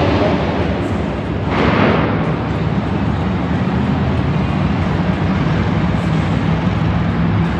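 Monster truck engine rumbling low and steady in a large echoing arena, with a louder surge about a second and a half in.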